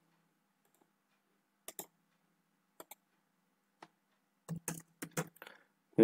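Faint computer mouse clicks and keyboard keystrokes: single clicks about a second apart, then a quick run of clicks near the end.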